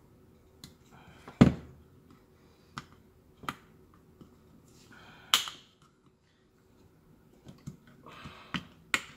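Plastic clips of a car's blower motor control module housing clicking and snapping as they are pried at with a small hook tool, among lighter taps and handling of the plastic. The sharpest snap comes about a second and a half in, another about five seconds in.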